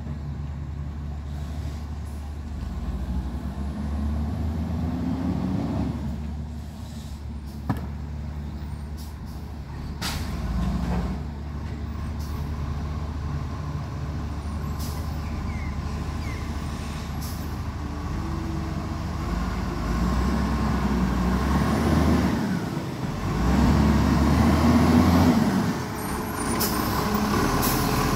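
Diesel engine of an ACCO side-loader garbage truck running as the truck pulls up close, growing louder towards the end, with a hiss of air brakes.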